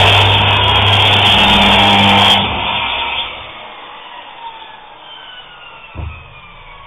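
Electric circular saw running at full speed, then switched off about two and a half seconds in, its whine falling steadily in pitch as the blade spins down. A single knock comes near the end.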